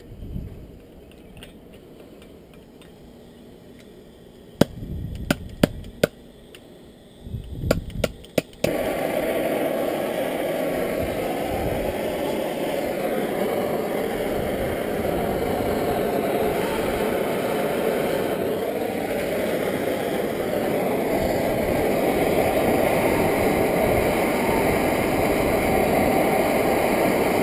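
A few sharp clicks, then from about nine seconds in a soldering torch's flame burning with a steady hiss.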